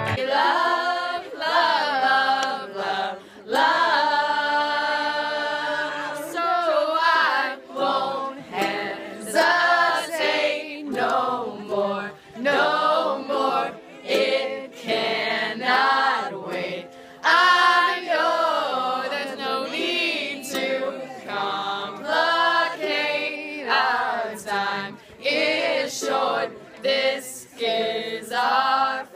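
A group of young people singing a song together.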